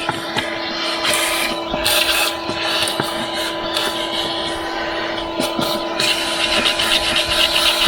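Vacuum cleaner running with a steady hum, its nozzle scraping and clicking as it sucks up grit and debris, with swells of hiss as the airflow changes.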